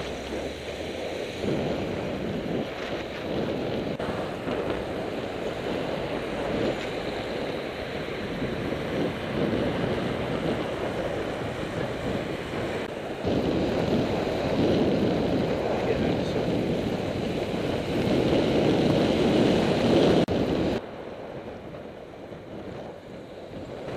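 Wind rushing over a cyclist's helmet-camera microphone while riding on a road, mixed with road and traffic noise. The noise changes abruptly about 13 seconds in and drops quieter about 21 seconds in.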